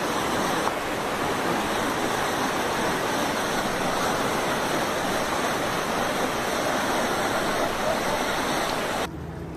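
Fast muddy floodwater rushing down a street in a steady, loud torrent, cutting off abruptly about nine seconds in.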